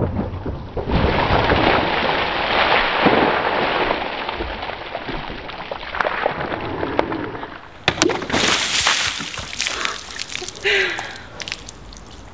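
Ice water from a bucket splashing down over two people and onto paving: a long wash of splashing and spattering, then fresh splashes and drips from about eight seconds in.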